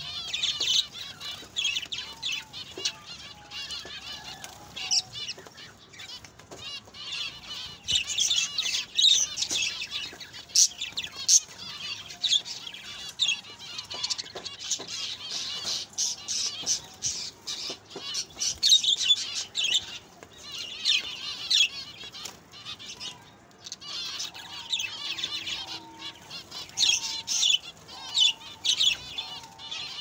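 Zebra finches calling non-stop: a dense chatter of short, high nasal beeps with scattered sharp ticks, swelling into louder, busier bursts every few seconds.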